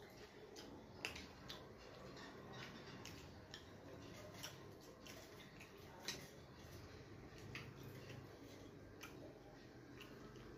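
Faint eating sounds: scattered soft clicks and ticks as rice and bitter-gourd bhaji are mixed by hand on a steel plate and chewed, over a low steady background hum.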